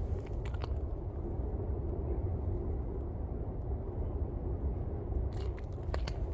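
Outdoor ambience with a steady low rumble, like wind on the microphone. A few crunching footsteps on icy snow come about half a second in and again near the end.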